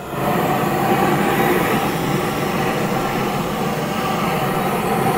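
GrillGun propane torch firing a steady jet of flame into lump charcoal. It comes up sharply at the start, then holds at an even level.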